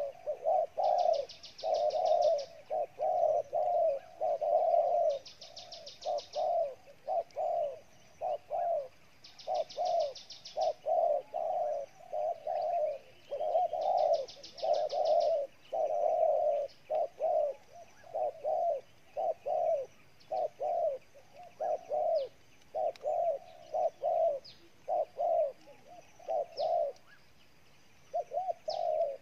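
Spotted doves cooing hard: a long run of short, low coos, two or three a second, broken by brief pauses.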